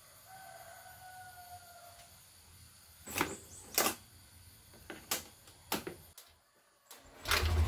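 Four sharp clicks from the key and ignition area of a Honda Beat scooter, then near the end its engine starts and settles into a steady low idle: a cold morning start to warm the engine up.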